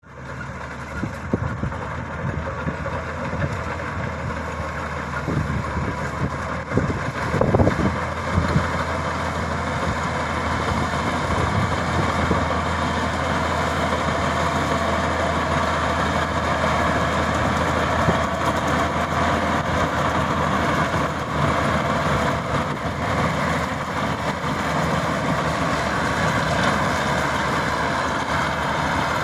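Maxxi Bimo 102 combine harvester running steadily, its engine humming under a dense mechanical clatter, with a few sharp knocks about five to eight seconds in.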